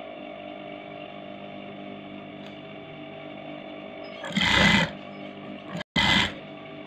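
Electric sewing machine running in two short bursts of stitching through fabric, about four and six seconds in, over a steady hum.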